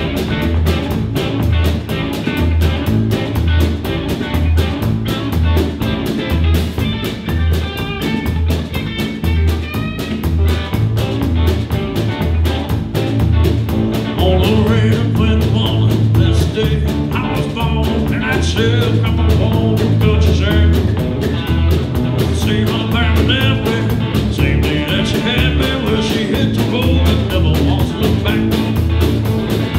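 Live band of upright bass, drum kit and electric guitar playing an uptempo tune, with a steady pulsing bass line under a busy, regular drum beat.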